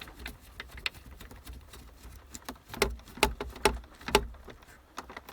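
Irregular plastic clicks and knocks from hands working on the back of a car stereo head unit, fitting its aerial cable and screwing on a small plastic plug. The loudest knocks come about three to four seconds in.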